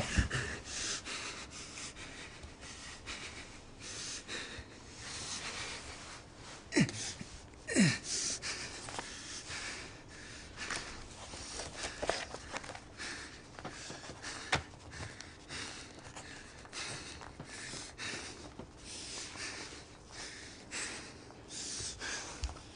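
A person breathing audibly, with two short sighs that fall in pitch about seven and eight seconds in, among soft rustling.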